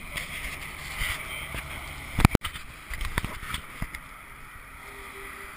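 A pushchair rolling over pavement, heard through a camera mounted on it: a low rumble with scattered rattles and knocks, and one loud knock about two seconds in.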